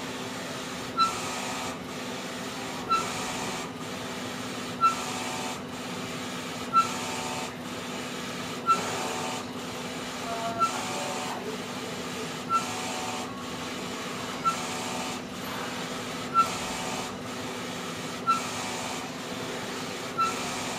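Wide-format sublimation inkjet printer printing transfer paper: a steady mechanical hum as the print head carriage works, with a sharp click about every two seconds.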